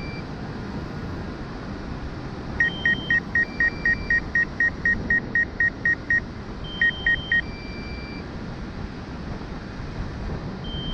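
Rapid short electronic beeps from a DJI Mavic 2 remote controller, about a dozen at roughly three a second, then a pause and three more, over steady wind noise on the microphone.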